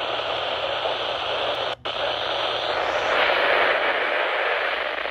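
Steady hiss of static from a weakly received weather-radio broadcast, with a brief cutout about two seconds in.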